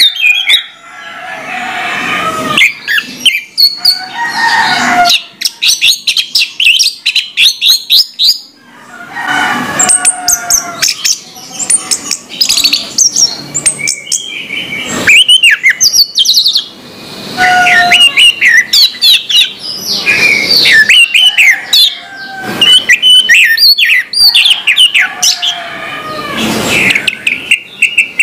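Orange-headed thrush singing a loud, varied song: runs of whistled, sliding notes mixed with rapid chattering, in phrases broken by short pauses.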